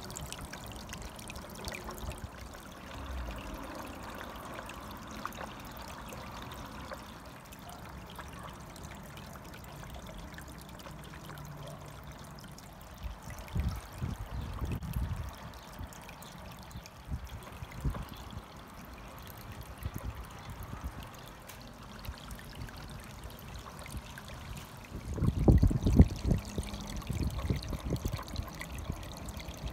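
Small waterfall spilling into a wine-barrel pond, a steady trickle of water. Low rumbles break in about halfway through and again, louder, near the end.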